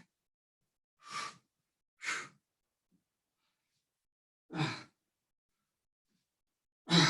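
A person breathing out hard in short, sighing exhales with the effort of twisting crunches, four times, the last one the loudest.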